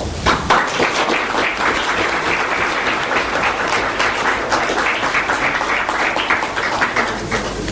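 Audience applauding: many hands clapping at once, starting right away and thinning a little near the end.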